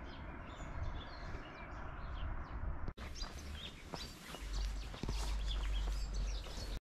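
Small birds chirping and calling over a steady outdoor hiss. A low rumble comes in about two-thirds of the way through.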